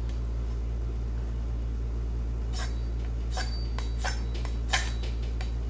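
A CRKT Chanceinhell machete scraped down a ferro rod (fire steel) in several short, sharp rasps starting about halfway in, the loudest near the end. The machete is only just able to strike sparks from the rod. A steady low hum runs underneath.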